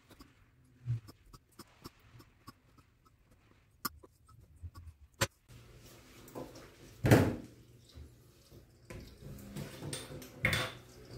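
Light clicks and taps of kitchen utensils, including fish-bone tweezers, on a plastic cutting board, with a louder knock about seven seconds in and another near the end.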